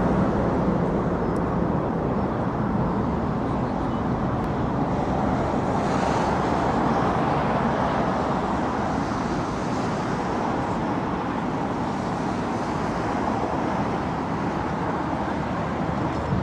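Boeing 787-8 Dreamliner's GEnx jet engines on final approach at low thrust, a steady rushing roar that swells a little towards the middle.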